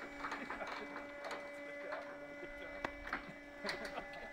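Forklift moving slowly, its motor giving a steady whine made of several even tones, with scattered light clicks and knocks.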